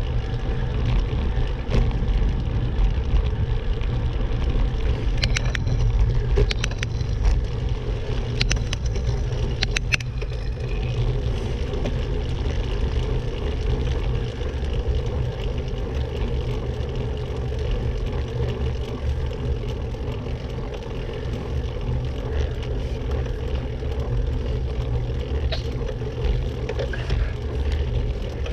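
Steady wind and road rumble from moving along a road, with a handful of sharp clicks about a fifth to a third of the way through.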